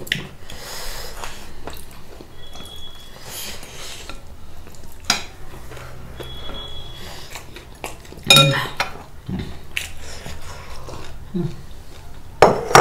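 Cutlery and dishes clinking at a meal: a few sharp clinks over a low background, with two short high ringing tones.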